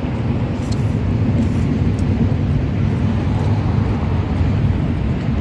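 Steady low rumble of outdoor background noise at an even level, with faint small clicks above it.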